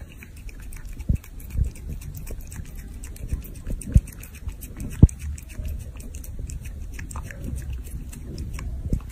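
A cat licking and smacking creamy food off a metal spoon, a quick run of small wet clicks, with a few soft thumps about a second in, around four and five seconds in, and near the end.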